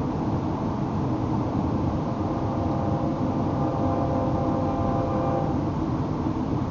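Freight train passing a level crossing: a steady rumble of rolling wagons, with a faint high whine for a few seconds in the middle.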